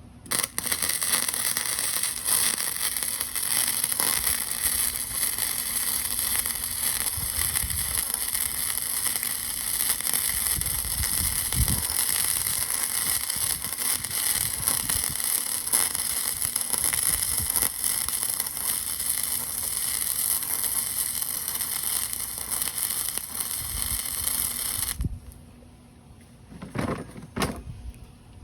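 Arc welding: a steady crackling hiss that starts just after the beginning, runs for about 24 seconds as one continuous bead, and stops suddenly near the end, followed by a few faint clicks.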